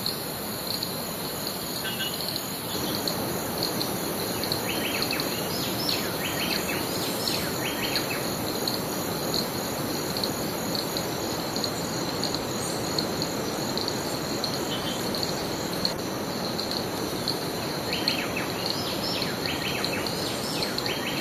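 Tropical forest insects trilling steadily at a high pitch over a constant rushing background, with clusters of short chirping calls a few seconds in and again near the end.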